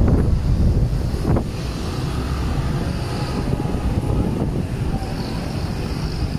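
Wind buffeting the microphone over a steady hum of road traffic passing below. The wind gusts are strongest in the first second and a half, then ease to a steadier rumble.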